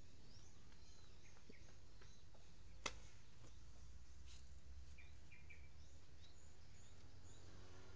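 Faint outdoor background hum with scattered short bird chirps, and one sharp click about three seconds in.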